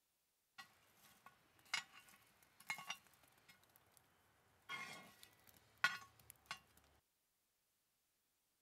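Charcoal briquettes and a metal lid lifter clinking and scraping on a cast-iron Dutch oven lid as the coals are cleared off: several sharp clinks and a few short scrapes.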